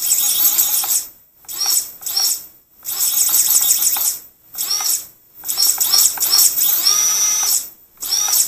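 Brushless motors of an MXP230 mini quadcopter whining in a series of short throttle blips, each spinning up and cutting off sharply. The ESCs, flashed with BLHeli and OneShot125, actively brake the motors, so they spin down almost instantly instead of winding down gradually.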